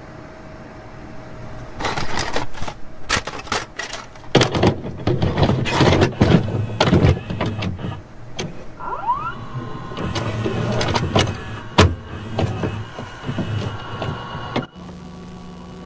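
A VCR's tape mechanism clicking, knocking and whirring, with a run of sharp clacks and short motor whines.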